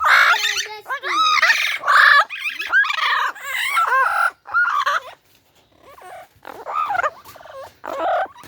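Parrot squawking and chattering: a fast run of short, harsh calls that slide up and down in pitch, dropping to softer calls about five seconds in and picking up again near the end.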